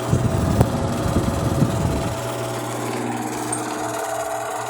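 Faulty Arno electric fan running: a steady motor hum, with an irregular rattling noise from the turning blade for about the first two seconds. The noise comes with a fan that is slow to start and whose blade struggles to turn.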